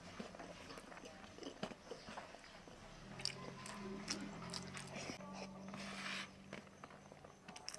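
A person chewing and biting food close to the microphone, with repeated wet mouth clicks and smacks. A low steady hum sounds for a few seconds in the middle.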